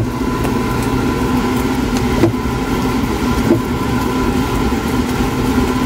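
Steady motor hum, like a fan running, with a couple of faint scrapes from a spatula stirring thick churro dough in a nonstick pan.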